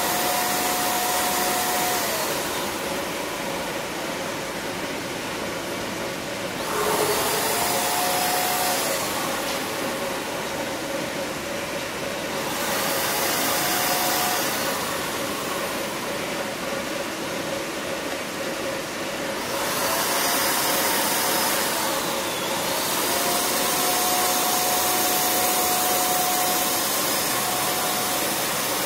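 Corded handheld electric paint spray gun running steadily with a motor whine and a rush of air. Its pitch steps up and down slightly several times, and the hiss of the spray grows brighter and duller in turns.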